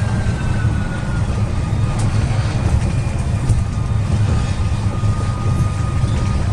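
Karosa B961 articulated city bus driving, heard from inside: its diesel engine drones steadily under road and cabin noise, with a faint whine above it.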